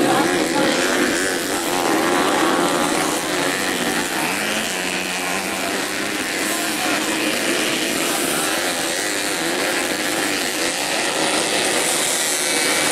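Several stock underbone race motorcycles on a dirt track, their engines revving hard together. The overlapping engine notes rise and fall.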